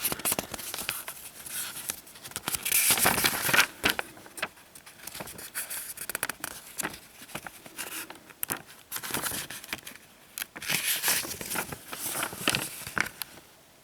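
Handling noise: irregular rustling and crinkling with many small clicks as things are handled close to the microphone, in two louder spells, one a few seconds in and one near the end.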